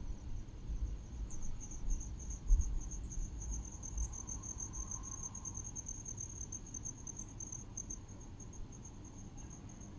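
Insects trilling in one continuous high, finely pulsing note, with the low rumble of wind on the microphone rising and falling underneath, loudest in the first few seconds. A few faint clicks come and go.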